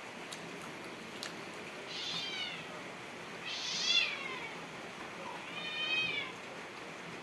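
A cat meowing three times, each call under a second long and falling in pitch, the second one the loudest.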